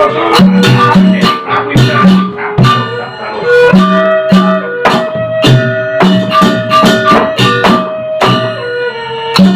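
Sasak gamelan ensemble playing a gending for wayang: struck metal notes ringing over low hand-drum strokes, with a held melodic line above that steps down in pitch near the end.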